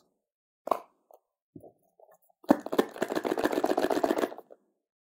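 Phone box packaging being handled: a few light taps and knocks, then about two and a half seconds in a dense crinkling rustle of plastic packaging lasting about two seconds.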